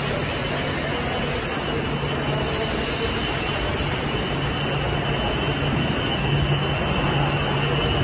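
Steady industrial drone with a low hum underneath, from a running flat-glass tempering furnace line and its machinery.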